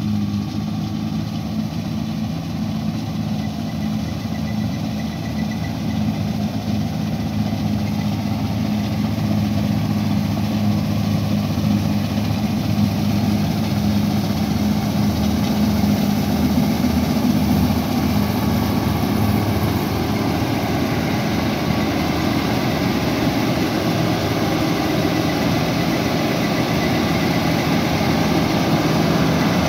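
Combine harvester running steadily in the wheat: a constant engine hum with the noise of the cutting and threshing machinery, gradually growing louder.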